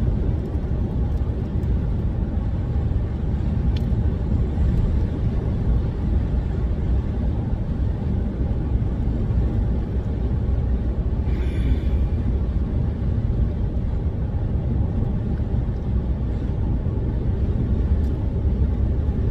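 Steady low rumble inside a car's cabin, with a brief higher-pitched sound about eleven and a half seconds in.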